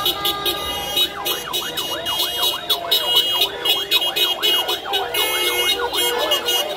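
Electronic siren in a fast yelp, its pitch sweeping up and down several times a second. It starts about a second in and fades near the end, over steady high tones and traffic noise.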